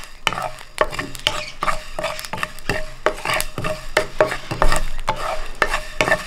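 Wooden spatula stirring mustard and fenugreek seeds as they dry-roast in a hot pan with the flame off, with rapid sharp clicks throughout from the seeds popping in the pan's heat.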